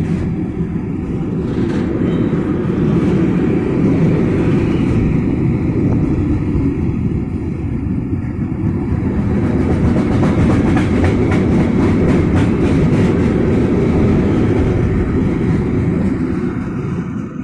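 Intermodal container freight train rolling past at speed: a steady heavy rumble of the wagons' wheels on the rails, with a run of rapid clicking and clatter from the wheels in the second half.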